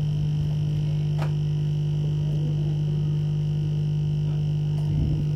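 Hot-air rework station blower running steadily, a low hum with a thin high whine, heating the solder of a phone's old charging connector to lift it off the board.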